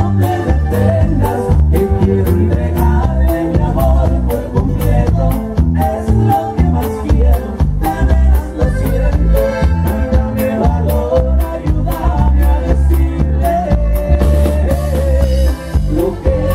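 Live band music through a loud sound system: heavy bass, a steady, even drum beat and a melody line running over it.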